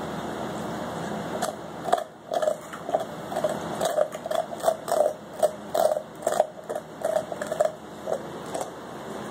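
Rhodesian Ridgeback gnawing a large knuckle bone: an irregular run of crunches and cracks, about two or three a second, starting a second and a half in.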